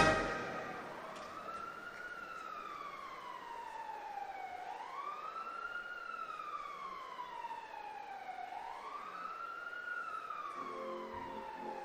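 Emergency vehicle siren wailing, its pitch rising quickly and then falling slowly, about three cycles of roughly four seconds each.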